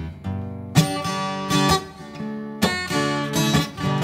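Acoustic guitar strumming chords, each stroke left to ring.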